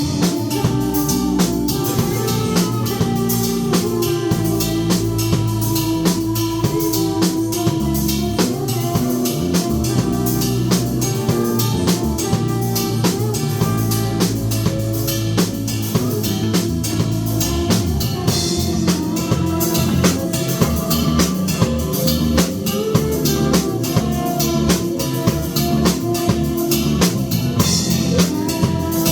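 A live rock band playing a song, with a drum kit keeping a steady beat of snare and bass drum over bass and sustained pitched instruments.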